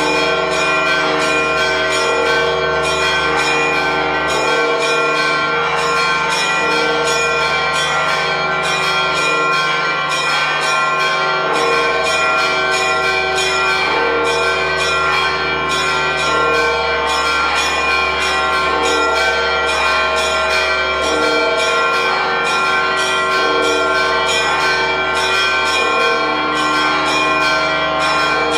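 Church bells ringing a fast, continuous festive peal, several strikes a second over a steady ring: the celebratory ringing that greets the Holy Fire.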